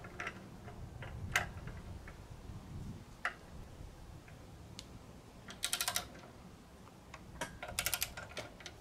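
Socket ratchet clicking as it is worked on a cylinder-head stud in an aluminium engine block: a few single clicks, then two quick runs of clicks about halfway through and near the end as the handle is swung back. The studs are seized and will not budge.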